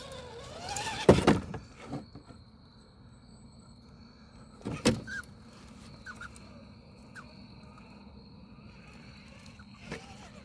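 RC rock crawler truck knocking against the terrain on a steep climb: two loud knocks, about a second in and near the middle, over a faint steady background.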